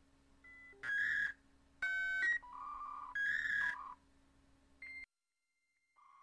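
A run of short electronic beeps and buzzy tones jumping between pitches, about half a dozen in the first four seconds, then a moment of dead silence and a steady tone starting near the end. The tones are presented as pulsed microwave radiation rendered as sound.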